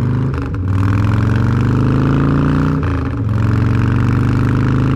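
Cruiser motorcycle engine running under way, heard from the rider's seat with wind noise. The engine note briefly dips and recovers twice, about half a second and three seconds in.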